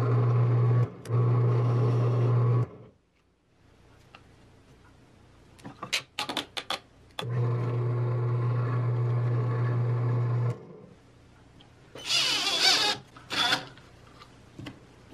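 Benchtop drill press motor running with a steady hum as it drills into plywood; it stops about two and a half seconds in and runs again for about three seconds after a few clicks. Near the end, a cordless drill runs in two short bursts.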